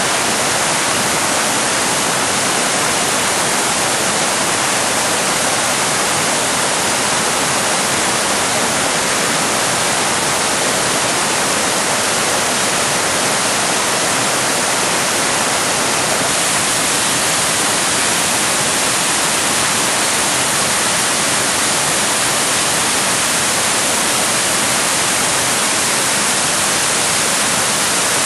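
Waterfall: white water pouring down a stepped rock cascade, a dense, steady rush that does not change.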